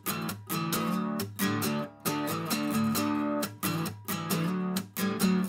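Background music: strummed guitar chords in a steady rhythm.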